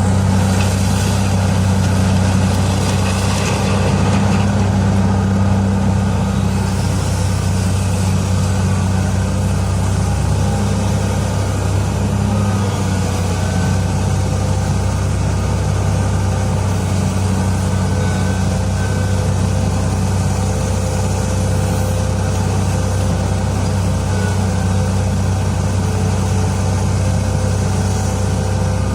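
Heavy diesel engine of mining machinery running steadily with a constant low hum, and a rushing, gritty noise over it for the first several seconds.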